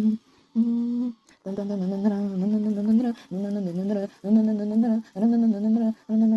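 A person humming a tune without words, in short held phrases of about half a second to a second. The pitch stays mostly level, with small dips, and there are brief breaks between phrases.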